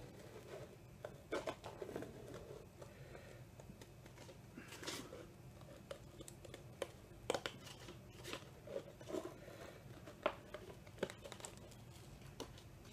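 Scissors cutting a round eye hole in a paper plate: a string of faint, irregular snips, with the paper crackling as the plate is turned.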